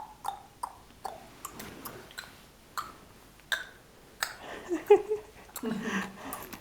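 Playful mouth noises: a string of short tongue clicks and smacks, about two a second, with a few brief grunting or cooing sounds about two-thirds of the way through.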